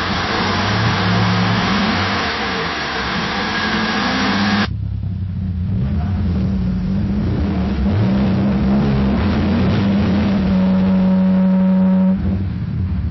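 Car engine running and revving, then an abrupt switch to a second car engine that is revved up and down several times, held at high revs near the end before dropping back.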